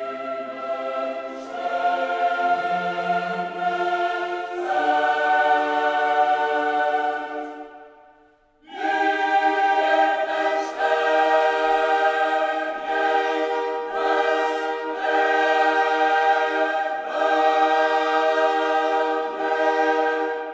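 Background music: a choir singing long held chords. It stops for a moment about eight seconds in, then starts again.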